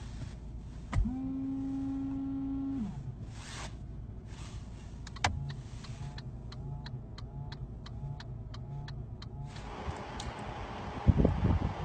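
A car horn pressed gives a weak, steady tone for about two seconds. Then a small electric motor, the windscreen washer pump, hums in pulses with about three clicks a second for some four seconds while it sprays. A loud rushing noise starts near the end.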